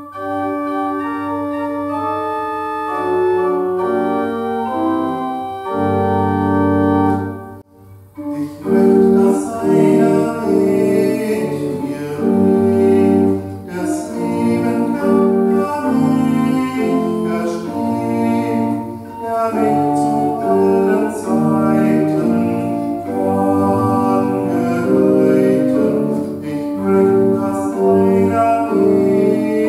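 Church pipe organ playing a hymn: a short introduction of held chords, a brief pause about eight seconds in, then the hymn tune with a voice singing over the organ.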